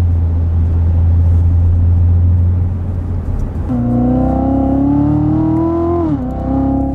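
2016 Corvette Z06's supercharged 6.2-litre V8 heard from inside the cabin: a steady low drone, then from about three and a half seconds in the engine note climbs under acceleration and drops sharply just before six seconds as the eight-speed automatic shifts up.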